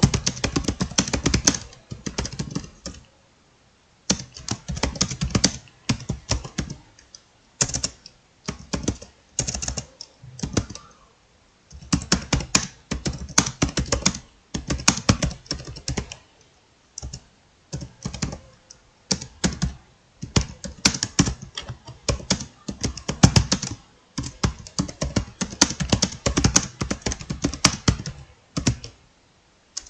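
Fast touch-typing on a laptop keyboard: rapid trains of keystroke clicks in bursts of a few seconds, broken by short pauses.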